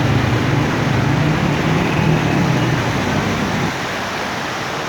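Motor vehicle engine running close by, with a low hum that fades out about three and a half seconds in, over a steady rushing hiss from traffic on the flooded street.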